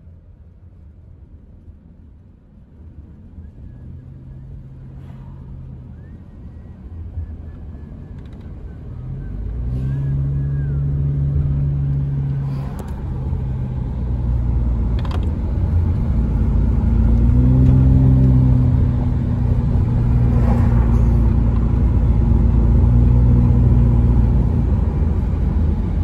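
A car driving along a road, with engine hum and tyre and road noise. The sound gets much louder about ten seconds in as the car speeds up, and the engine note rises again a few seconds later.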